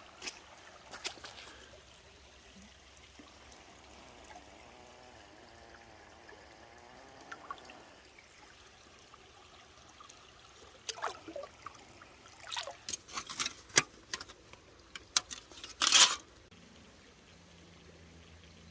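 Water trickling and pouring, with scattered clicks and knocks and one brief louder burst near the end.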